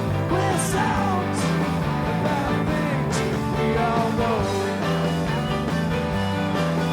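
Rock band playing: electric guitar and bass stepping through a riff, with drums and cymbal crashes.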